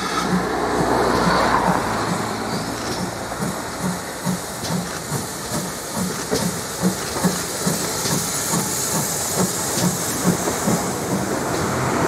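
GWR Large Prairie 2-6-2 tank locomotive no. 5199 passing slowly with a train of carriages: a steady hiss of steam over a quick even beat, with the clatter of the carriage wheels.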